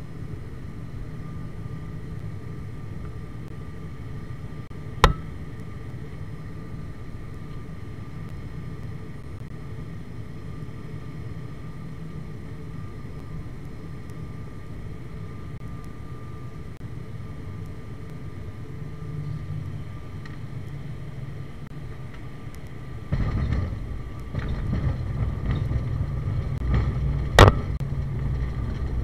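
Turboprop airliner heard from inside the cabin on final approach: a steady engine drone with a couple of fixed whining tones and a sharp click about five seconds in. About 23 seconds in the sound jumps to a louder rumble as the wheels touch down and roll on the runway, with a sharp knock near the end.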